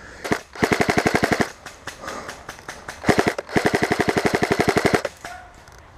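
Airsoft gun firing on full auto: a single shot, then a burst of about a second, and a longer burst of about two seconds starting about three seconds in, at roughly a dozen shots a second.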